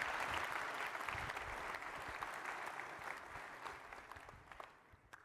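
Large audience applauding, the clapping thinning out steadily and dying away near the end.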